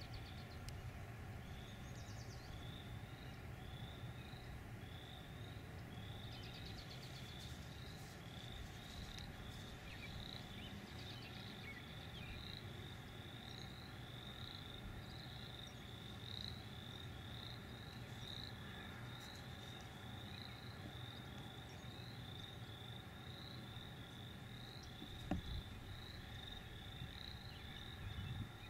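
Outdoor ambience with a small animal's short rising chirps, repeated about twice a second, over a faint steady hum. There is one sharp click near the end.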